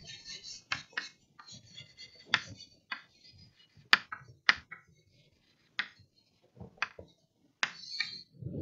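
Chalk writing on a chalkboard: sharp irregular taps as the chalk strikes the board, with short scratchy strokes between them.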